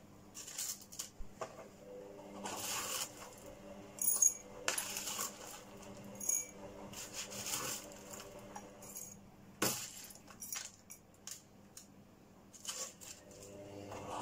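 Metal spoon scooping gritty potting mix of small stones and bark, the grit clinking and rattling as it is dropped into a small terracotta pot, in several separate scoops with a few sharp clinks.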